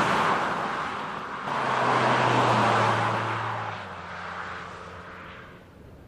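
Road traffic: tyre and road noise from a passing car dies away over the first second and a half. Then a second car passes, its tyre noise and a steady engine hum swelling, peaking in the middle and fading out near the end.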